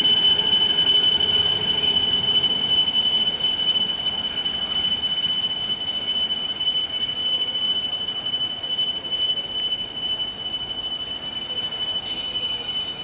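Wheels of passenger coaches squealing as the train rounds a curve through the points while pulling away: one steady high squeal over a rumble that slowly fades as the train recedes. A second, higher squeal joins near the end.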